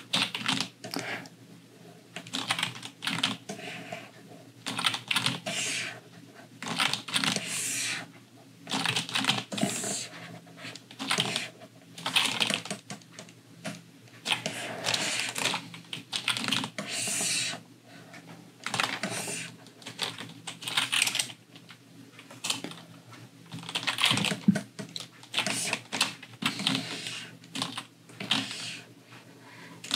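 Computer keyboard keys clicking in irregular bursts with short pauses between them, as keyboard shortcuts and typing during image editing.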